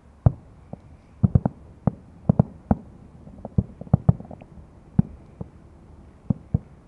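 Fireworks exploding: an irregular series of nearly twenty sharp bangs, several coming in quick clusters of two or three.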